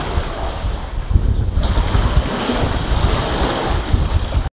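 Sea water sloshing and surging against the rock walls of a sea cave around a kayak, with low, gusting wind rumble on the microphone.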